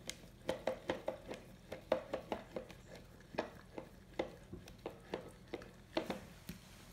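Golden retriever licking yogurt out of a plastic tub with his snout inside it: a quick, irregular run of wet laps and clicks against the plastic, several a second.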